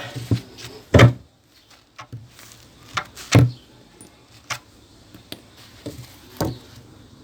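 Three loud knocks, about a second in, about three and a half seconds in and just past six seconds, with lighter clicks and taps between them.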